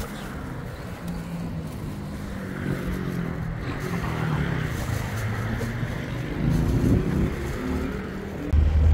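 A motor vehicle running with road noise, its engine note shifting in pitch; a louder low drone comes in near the end.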